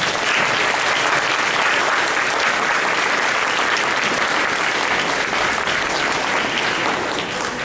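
Audience applauding: a dense, steady crowd of hands clapping in a large hall, easing off near the end.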